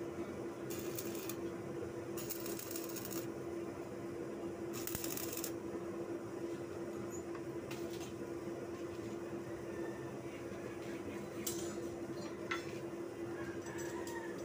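Stick (arc) welder tack-welding steel rods: a few short crackling bursts of the arc, the longest about a second, over a steady hum.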